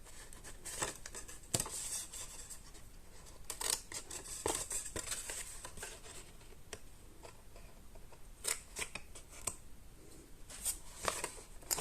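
Scissors snipping through card, a series of short, sharp snips at irregular intervals as small squares are cut away.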